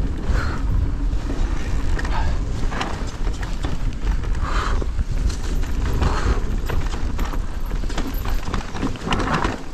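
An e-mountain bike (Cube Stereo Hybrid 160) rattling over a rough trail at speed: irregular knocks and clatter from tyres, suspension and frame, over a constant low wind rumble on the microphone.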